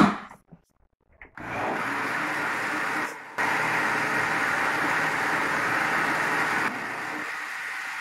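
Countertop blender mixing a liquid pie batter to stir in the baking powder. A sharp knock from the lid at the very start, then the blender starts about a second and a half in, cuts out briefly near three seconds, runs again, and drops to a lower level near the end before winding down.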